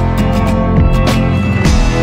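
Background music: an upbeat track with guitar and a steady beat.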